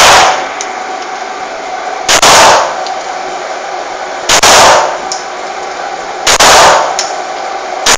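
Semi-automatic pistol fired at a steady pace, five shots about two seconds apart, each sharp report echoing briefly in the enclosed range.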